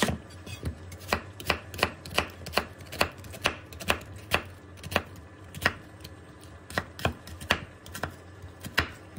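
Chef's knife slicing through a white onion and striking a wooden cutting board: sharp, regular knocks about two a second, with a short pause a little past the middle.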